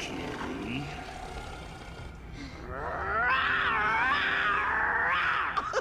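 A lion cub's attempted roar, a cartoon voice effect: a thin, wavering growl of about three seconds that begins some two and a half seconds in. It is too weak to be a real roar.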